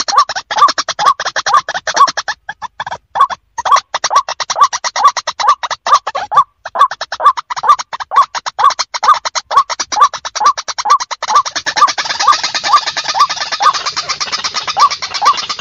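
White-breasted waterhen calling: a fast rattling train of clicks with a short hooked note repeated about twice a second. The rattle thickens into a denser, hissier chatter about two-thirds of the way through.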